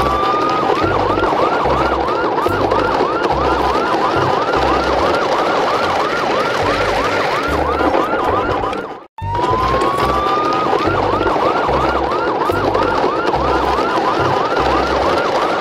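Electronic siren that starts with a rising wail, then switches to a fast yelp of about three sweeps a second over a low pulsing thump. It cuts off abruptly about nine seconds in and starts over with the same rising wail and yelp.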